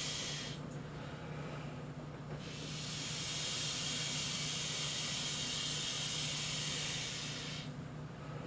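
An old vacuum cleaner used as a blower, pumping air through a hose into a large inflatable pool: a steady motor hum under a rushing hiss of air. The upper hiss drops away for about two seconds, once about half a second in and again near the end, while the hum goes on.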